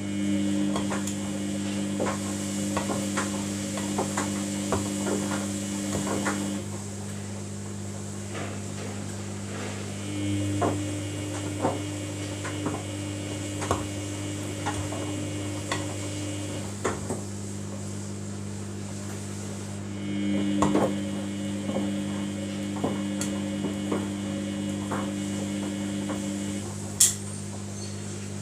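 Samsung washing machine tumbling a wash: the drum motor runs with a steady whine for about six seconds at a time, then pauses for about four seconds, three times over. A steady low hum runs underneath, with scattered light clicks and knocks and one sharper click near the end.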